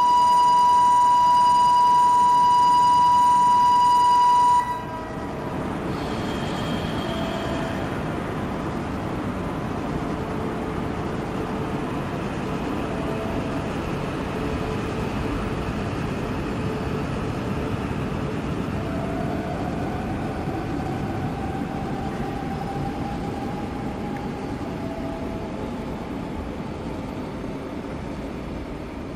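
A loud, steady electronic warning tone sounds for about four and a half seconds and cuts off. Then an E4-series Max Toki double-decker Shinkansen pulls away from the platform with a low running rumble and a faint whine that slowly rises in pitch from about two-thirds of the way through.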